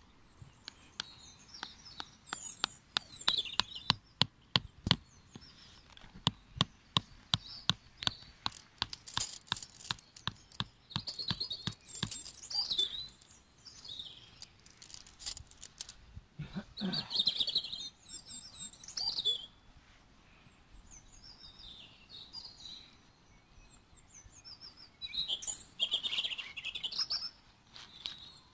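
Rubber mallet knocking a metal tent peg into grass turf: a long run of quick, sharp strikes through the first half, then a few more. Small birds chirp throughout.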